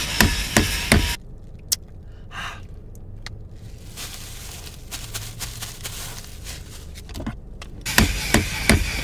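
Clicks, taps and light scraping from handling a Glock 21 Gen 5 MOS slide and a Holosun 507C red-dot sight while the sight is being mounted. A cluster of sharp clicks comes in the first second, scattered single clicks follow, and another cluster comes near the end.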